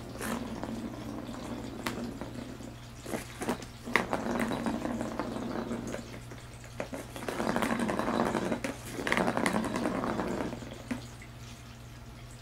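Small ball rolling around the plastic track of a circular cat toy as a kitten bats it: a few sharp clicks of paw and ball against the plastic, then two long spells of rolling rumble in the second half.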